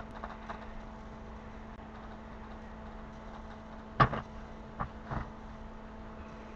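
Homemade sewer camera rig working its way down a sewer pipe: a steady electrical hum under faint hiss, with one sharp knock about four seconds in and two lighter knocks about a second later as the camera rig bumps against the pipe.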